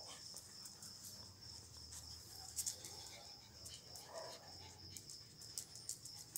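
Faint soft whimpering from a tiny Miniature Pinscher as it is petted, clearest about four seconds in, over a steady high-pitched tone.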